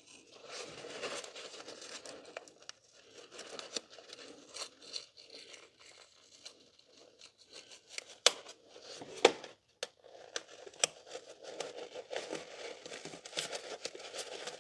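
Paper shop towels and blue tape being folded and rolled up by gloved hands: continuous crinkling and rustling with many irregular crackles, two sharper ones a little past halfway.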